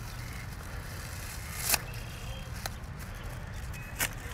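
Scissors snipping through wild garlic stems: three short, sharp snips, the last near the end, over a steady low outdoor rumble.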